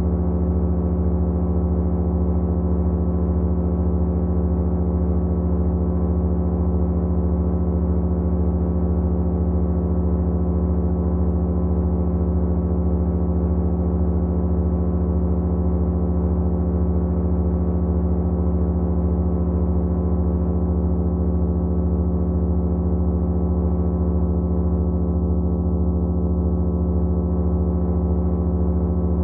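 Several motors running together at constant speed: a steady low hum made of many layered steady tones, one of them faintly pulsing.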